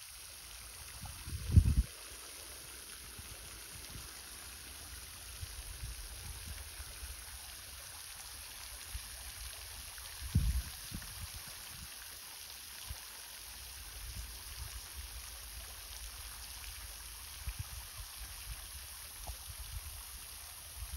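Steady hissing spray of a pond fountain jet splashing back onto the water. A few brief low thumps break in, the loudest about a second and a half in and again about ten seconds in.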